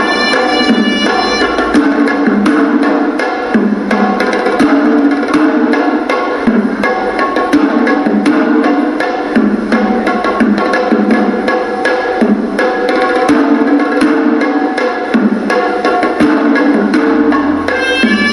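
Hewisi temple music: traditional Sri Lankan drums beating a dense, steady rhythm under the held, reedy melody of a horanewa shawm.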